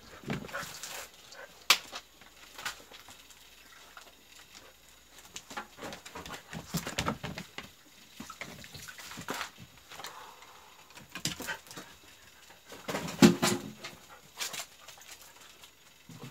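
Jindo dogs and a person eating Korean melon at close range: scattered short clicks, smacks and scrapes of chewing and handling, with the loudest cluster about 13 seconds in.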